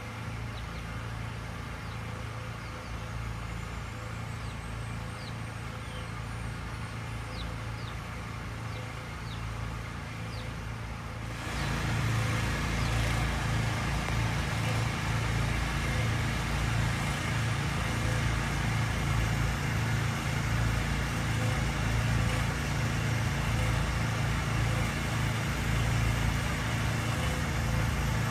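Steady low rumble of road traffic, stepping up louder about eleven seconds in, with a few faint short chirps over it before that.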